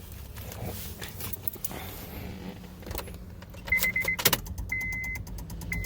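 2007 Honda Civic failing to start: a dashboard warning chime beeps, and about four seconds in a sharp click is followed by rapid, even clicking, about ten a second, from the main relay under the steering wheel. The relay chatter is the sign of a missing engine ground, which the owner traces to an unbolted ground on the engine's wiring harness.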